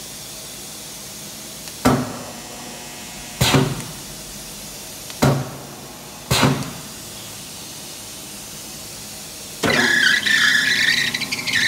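Four heavy clunks, each with a short ring, at uneven intervals over the first six seconds; then, about ten seconds in, the Bliss C-45 45-ton mechanical press's drive motor is started and a loud, wavering squeal sets in and keeps going.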